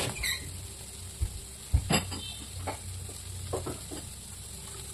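Boiled chickpeas sizzling in oil in a kadhai, while a steel spatula scrapes and knocks against the pan several times as they are stirred.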